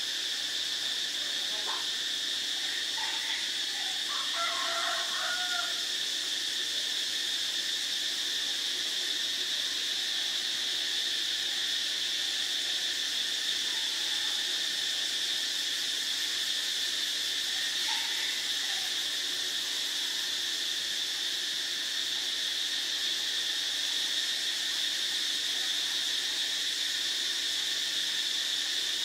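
Steady, unbroken high-pitched drone of a chorus of insects, with a few faint calls about three to six seconds in.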